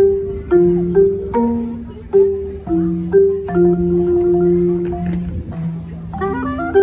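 Marimba played with soft mallets: a slow line of low notes, each strike ringing on. Near the end a soprano saxophone comes in with a quick run of notes.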